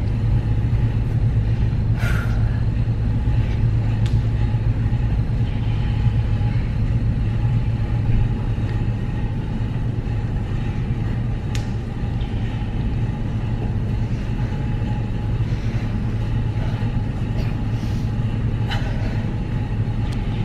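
Steady low rumble of a gym's background noise, with a few faint clicks.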